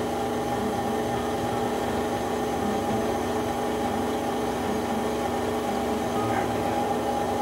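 Stand mixer motor running steadily with its dough hook kneading bread dough, a constant whining hum as flour is added.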